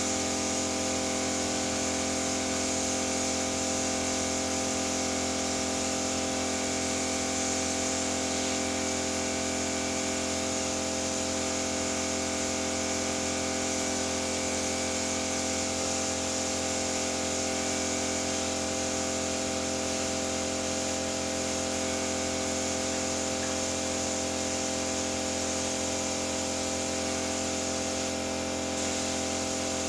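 Workshop machinery running steadily in a paint bay: an even, unchanging hum with a constant high hiss of air.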